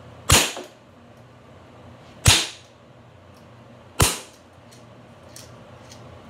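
A BB gun fired three times, the shots spaced about two seconds apart, each a sharp crack with a short echo, followed by a couple of faint clicks near the end.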